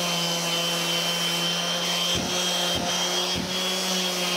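Makita random orbital sander running steadily on a board with an 80-grit disc, a steady motor hum with a high whine over it. Three brief low bumps come a little past halfway.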